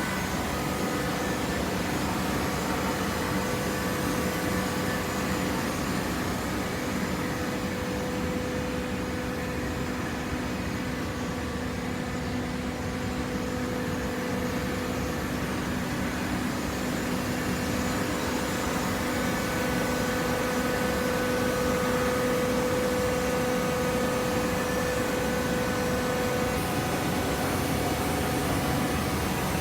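Automatic horizontal hydraulic cardboard baler running, its motor and hydraulic pump giving a steady mechanical hum that swells slightly about two-thirds of the way through.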